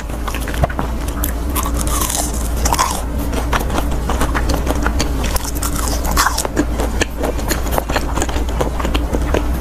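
Close-miked biting and chewing of a deep-fried milk-puff skewer with a thin crisp shell and a sticky, creamy milk filling. Many small crunches and wet mouth clicks follow one another throughout.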